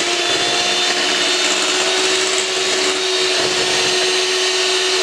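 Electric hand mixer running steadily with an even motor whine, its beaters churning thick cake batter in a glass bowl.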